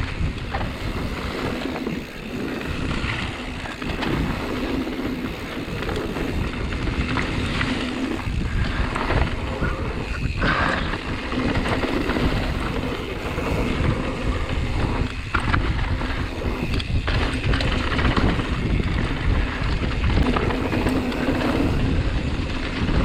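Mountain bike rolling fast down a dirt flow trail: a steady rush of tyre and wind noise with occasional knocks and rattles from the bike.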